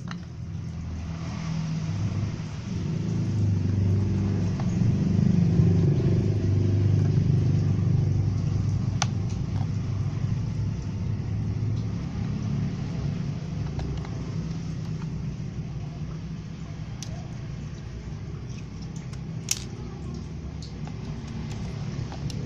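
Battery-powered toy train's small electric motor and plastic gears running with a low, steady whir, as the wheels spin while it is held. The sound swells over the first few seconds and then eases off. A few light plastic clicks come from handling.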